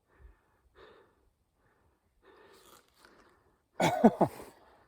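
Faint breathing or whispering, then a short, loud vocal outburst with a falling pitch about four seconds in.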